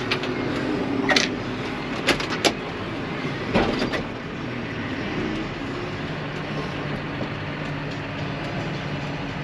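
Farm grain-handling machinery running steadily as corn wagons are unloaded, with several sharp metallic clanks in the first four seconds, then a steady low hum.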